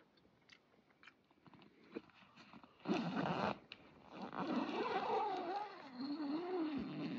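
A nylon dome tent's door zipper being pulled shut: a rasping zip whose pitch wavers up and down as the slider speeds and slows along the curved door, after a short rustle of the flap about three seconds in.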